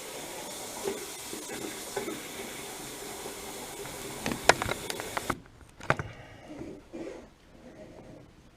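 Water running steadily, then cut off abruptly about five seconds in, followed by a few light clicks and knocks.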